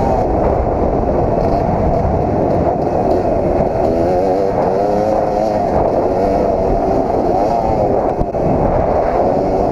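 Kawasaki KX250 two-stroke motocross bike engine being ridden hard, its pitch climbing and dropping over and over as the throttle is worked, with a heavy low rumble of wind and riding noise.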